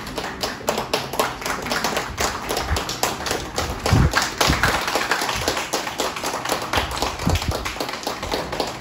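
Audience applauding, many people clapping their hands, with a couple of dull thumps, the first and loudest about halfway through.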